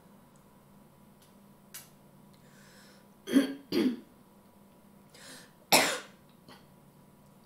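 A woman coughing and clearing her throat: two short coughs about three and a half seconds in, then a louder one near six seconds, with soft breaths in between.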